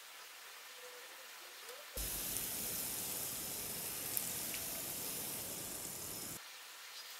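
Hot oil sizzling as a breaded corn dog deep-fries in a small pot. The sizzle is faint at first, turns much louder all at once about two seconds in, and drops back to faint just as suddenly about a second before the end.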